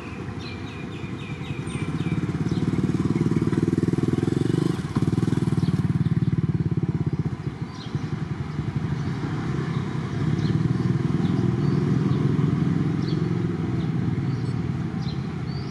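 An engine running steadily with a fast, rattling pulse, dipping briefly about five seconds in and again near eight seconds. Faint high chirps near the start.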